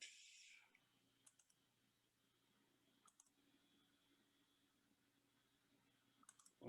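Near silence with a few faint, sharp clicks: a pair about a second in, another about three seconds in, and a quick cluster of clicks near the end.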